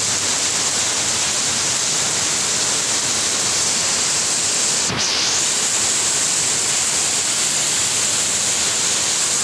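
Steady hiss of heavy rainfall, dipping for a moment about halfway through.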